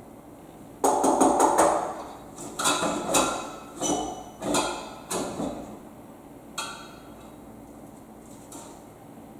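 Hard objects, most likely metal parts, clattering and being knocked: a loud rattling clatter about a second in, then half a dozen separate knocks that each ring briefly, and one last sharp knock.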